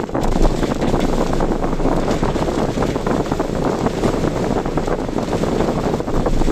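Strong typhoon wind rushing and buffeting the microphone: a loud, steady roar of noise with constant fine flutter.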